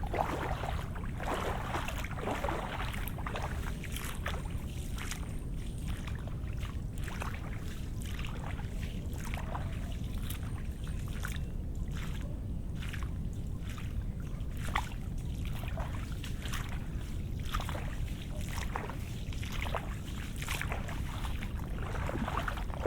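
Footsteps on wet ground after rain, a few irregular short crackles and splashes each second, over a steady low rumble.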